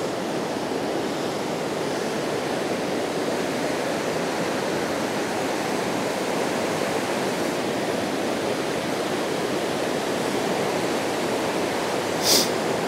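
Glacial meltwater river rushing steadily, with a short hiss near the end.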